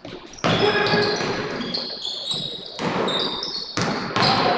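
Basketball game on a hardwood gym floor: many short, high sneaker squeaks, with the ball bouncing and an echo in the large gym.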